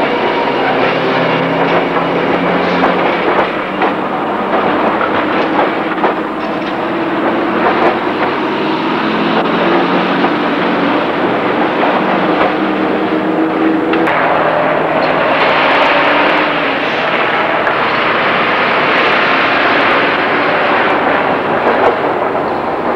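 Street traffic: a W2-class tram rolling away and motor cars passing, a continuous mix of engine and motor hum with tyre and road noise.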